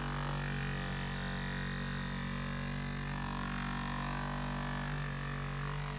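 SEVIZ Beatgun handheld massage gun running steadily at its top speed setting, a constant motor hum and buzz from its brushless motor and percussive head.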